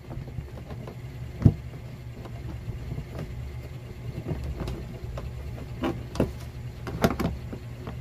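Wires being pushed into a plastic junction box and its cover fitted: scattered knocks and clicks of plastic and wire handling, the sharpest about one and a half seconds in, over a steady low hum.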